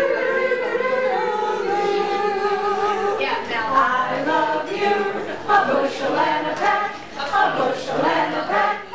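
A small group of people singing together unaccompanied, a long held note at first, then quicker words from about three seconds in.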